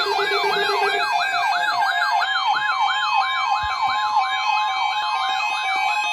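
Electronic wailing alert siren, its pitch sweeping rapidly up and down about three times a second over a steady tone; a lower steady tone underneath stops about a second in.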